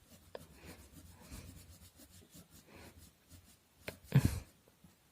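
Soft, repeated scratching strokes of a colouring tool rubbing on paper, with a sharp click and a louder knock about four seconds in.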